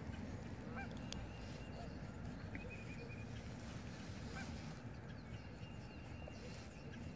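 Low, steady rumble of wind on the microphone, with a few faint, short bird calls, goose-like honks, scattered through it.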